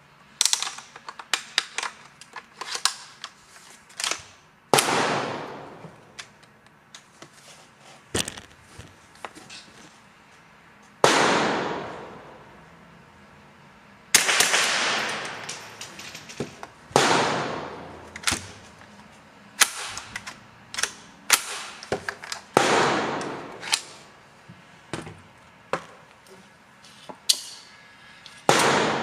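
Gunshots at a shooting range, one every few seconds, each with a sharp crack and a long fading echo: some from a Baikal MP161-K semi-automatic .22 LR rifle, others from neighbouring shooters. Between the shots come small clicks of .22 rounds being pressed into a magazine.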